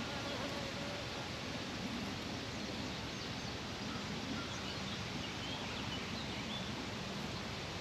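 Steady outdoor background noise with faint, short, high bird chirps scattered through the middle.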